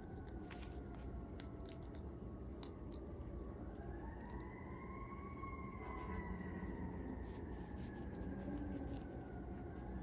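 A siren wails, its pitch rising and falling slowly, over scattered faint clicks and scratches from a stitching awl piercing a leather welt and thread being drawn through in hand-welting.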